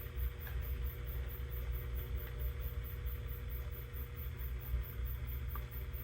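Steady low electrical hum, with a faint tick about five and a half seconds in.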